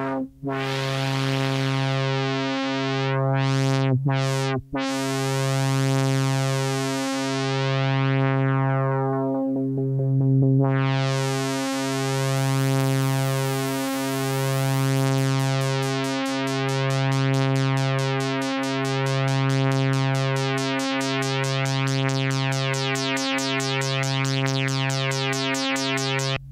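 MFOS Sound Lab Mini-Synth sounding one held, buzzy low note that swells and fades about every two seconds. It cuts out briefly twice in the first five seconds, and its brightness sweeps down and back up around the middle. In the last third a fast, even flutter of about four or five pulses a second runs through the high end.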